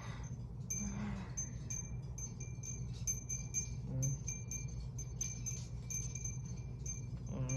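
High, tinkling chime notes repeating quickly and irregularly, over a low steady hum.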